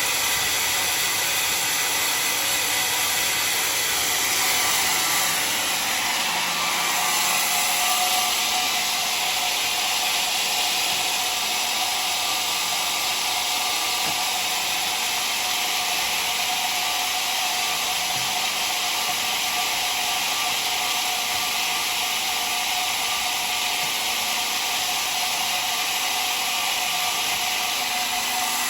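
Homemade sawmill saw cutting through dry, very hard acacia wood: a steady, unbroken whine and hiss.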